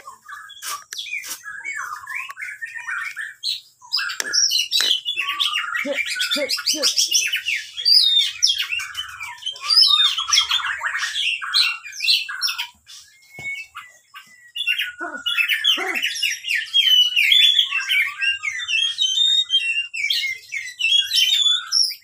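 Caged Oriental magpie-robin (kacer) singing a long, varied run of quick chirps and whistles, with a short pause about thirteen seconds in.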